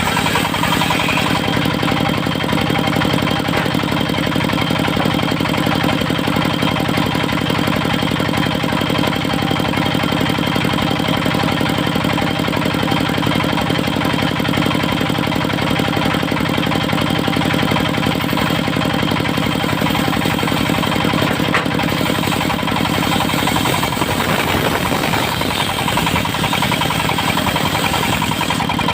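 Engine of a portable circular sawmill running steadily with a fast, even knocking beat; its low note shifts slightly near the end.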